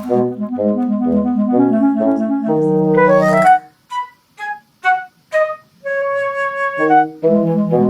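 Instrumental background music: a repeating bass-and-chord pattern with a melody on top. About four seconds in it thins to a few short, separate notes and a held chord, then the full pattern returns near the end.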